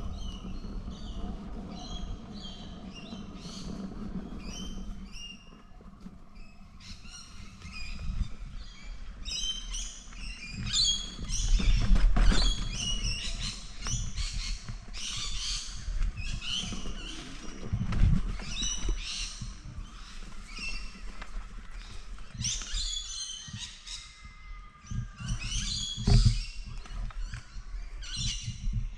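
Birds chirping and calling over and over above a low rumble from wind and riding over the trail, broken by three heavy thumps.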